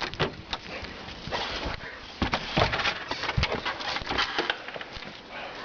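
Irregular crunching and thumping of movement through deep snow, with a steady noisy rush behind it.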